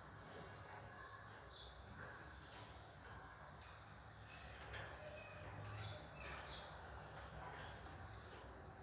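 Canaries calling: a sharp chirp about half a second in, then a fast run of short high notes from about five seconds in, with a louder chirp near the end.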